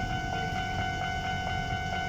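A Japanese level-crossing warning bell rings steadily, a repeating electronic ding that holds a few steady tones, over the low rumble of a Keisei 3700-series electric commuter train passing the crossing.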